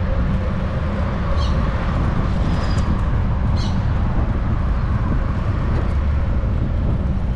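Steady rumble of traffic on the road alongside, mixed with wind noise from a moving bicycle, with a few short high chirps over it.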